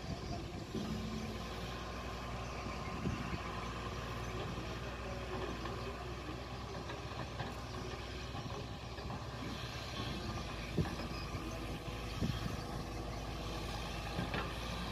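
Kobelco SK200 excavator's diesel engine running steadily while it works, heard at a distance, with a few faint knocks now and then.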